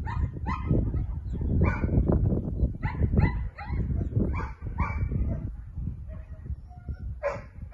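A dog barking repeatedly in short, irregularly spaced barks, with a lull around six seconds in and one more bark near the end, over a steady low rumble.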